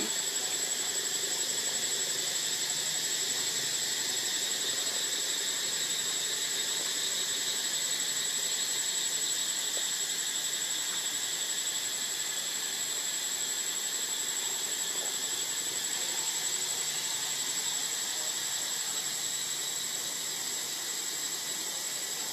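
Insect chorus, cicada-like, making a steady high-pitched drone with one shrill, unchanging tone on top.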